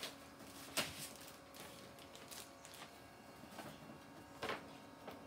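Homedics Shiatsu Max 2.0 back massager running with a faint, steady low hum, with a few sharp clicks, the loudest just under a second in and about four and a half seconds in.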